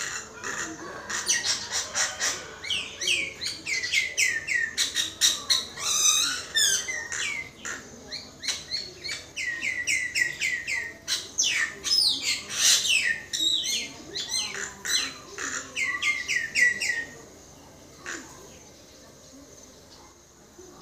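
Common myna singing a long, varied song of rattling clicks and repeated falling whistled notes, stopping about three-quarters of the way through.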